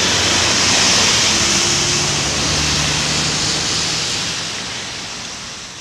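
Steady hiss of rain and traffic on wet city roads, with a low engine hum underneath; it fades out near the end.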